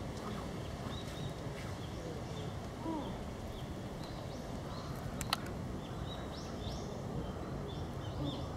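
Steady background noise with faint, high bird chirps that come in quick clusters in the second half, and a single sharp click about five seconds in.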